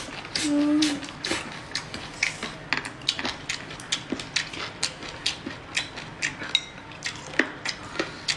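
Close-up eating sounds: a steady run of short, sharp chewing smacks and chopstick clicks on porcelain bowls, about three a second.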